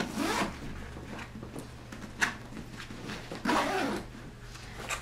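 Zippers on a black backpack diaper bag being pulled, a few separate short zip strokes with handling sounds of the bag and a brief click a little after two seconds in.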